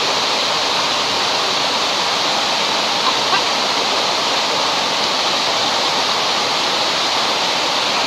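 Waterfall pouring into its plunge pool: a steady, loud rush of falling water.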